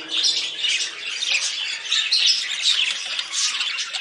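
Budgerigars chattering and warbling, an unbroken run of quick chirps and squawks.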